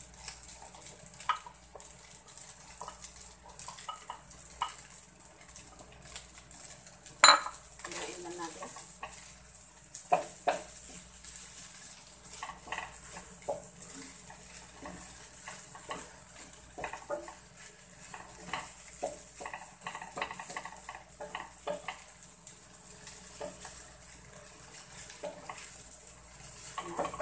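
Wooden spatula stirring and scraping rice and egg in a square non-stick frying pan, with scattered knocks and scrapes against the pan and one sharp, loud knock about seven seconds in. A faint sizzle of the rice frying runs underneath.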